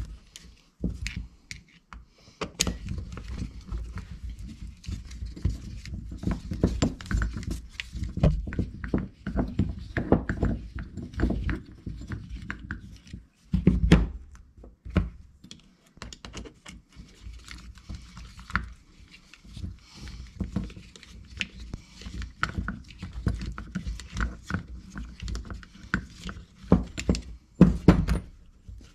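Irregular clicks, scrapes and knocks of hands handling metal snowmobile power valve parts and a folding Allen key set on a workbench while the Allen-head bolts on the power valve cover are undone. A few louder thunks come about halfway through and near the end.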